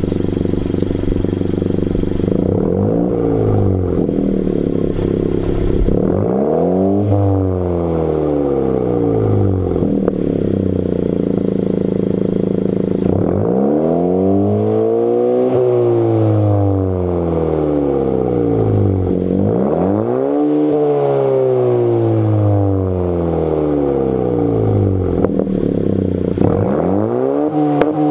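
A 2020 Honda Civic Si's 1.5-litre turbocharged four-cylinder, muffler-deleted and sounding through dual tips, idles and is then revved about five times. The pitch rises and falls with each rev, and two of them are held high for several seconds.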